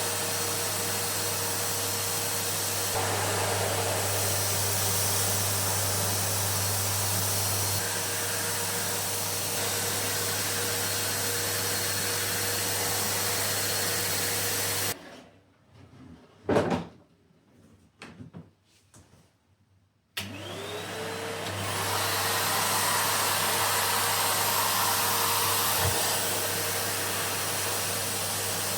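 Numatic tub vacuum cleaner running steadily with a constant motor whine. About halfway through it is switched off and cuts out suddenly, a few knocks and clicks follow, and then it is switched back on, its motor whine rising as it spins up to full speed.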